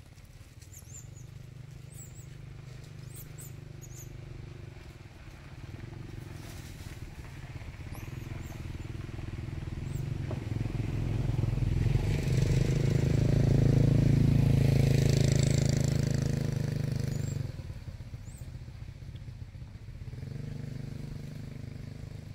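A motorbike engine running, growing louder to its loudest about twelve to seventeen seconds in, then dropping suddenly to a lower steady hum.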